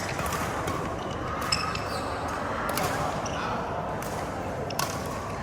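Badminton rackets striking a shuttlecock during a rally: sharp pops one to two seconds apart, over a steady background of voices.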